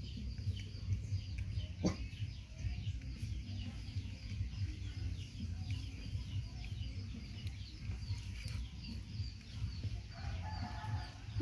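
Chickens clucking, with many short high chirps throughout and a steady low rumble underneath; a single sharp click about two seconds in.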